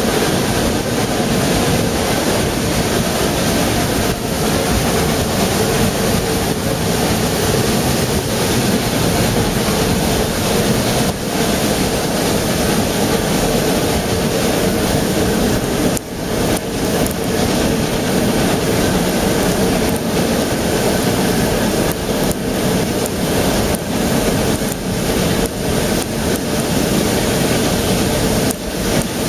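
Narrow-gauge steam train running at speed, a steady rushing noise of wheels on rail and air, with a few faint knocks along the way.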